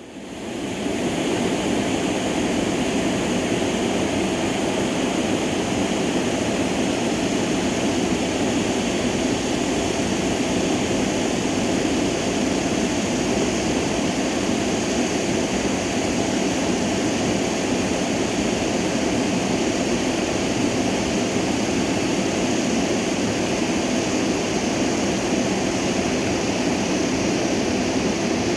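Stream water flowing and rushing steadily, an even noise that fades in over the first second and then holds constant.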